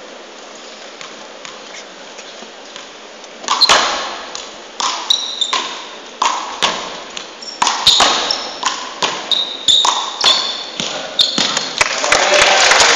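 One-wall handball rally: the small rubber ball cracking sharply off players' hands and the wall in quick succession, about two hits a second, each with a short ringing ping. Applause breaks out near the end as the rally finishes.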